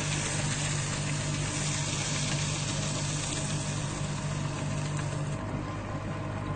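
Electric paper shredder running, with a steady motor hum under a dense, noisy cutting sound. The hum's strongest tone weakens about five and a half seconds in.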